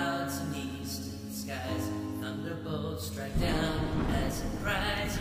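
Slow worship music with sustained, gently sliding notes. About three and a half seconds in it grows fuller and louder, as a deep low end comes in.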